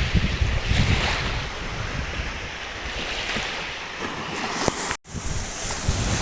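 Sea waves washing onto a beach, with wind buffeting the microphone in low gusts. The sound cuts out for an instant about five seconds in, then resumes.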